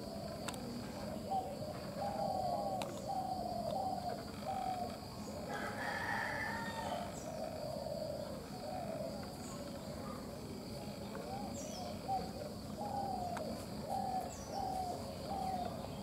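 Village birdsong: a bird repeats short, low, slurred notes about once a second in two runs, and a rooster crows once about six seconds in. A steady high insect drone and faint high chirps run underneath.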